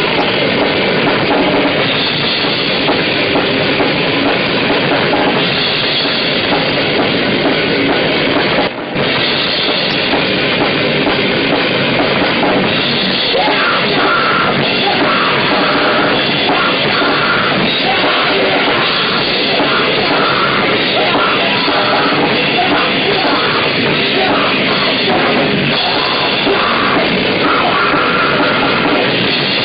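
Death metal band playing live: electric guitar, bass and drum kit, loud and dense throughout, with a momentary drop in level about nine seconds in.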